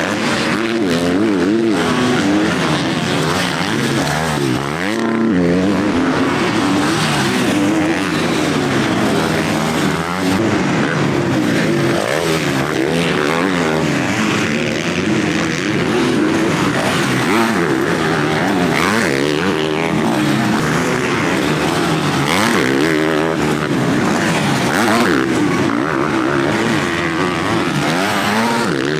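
Several motocross bikes racing at once, their engines revving up and falling back again and again as the riders work the throttle.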